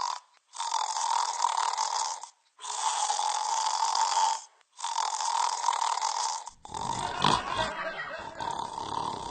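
Snoring: three breathy snores of about two seconds each, cut off by abrupt short silences. About two-thirds of the way through, the sound changes to a rougher, deeper stretch with a sharp click.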